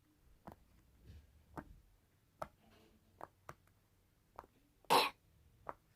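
Fidget popper toy being pressed on its quieter side, giving soft, irregularly spaced pops or clicks, with one louder pop about five seconds in.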